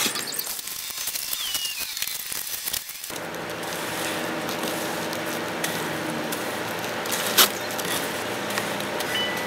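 Gritty scraping of wet concrete being worked: a steel trowel over the surface, then a wooden board pushed through the heaped mix to screed the chimney cap, with one sharp click about two-thirds through.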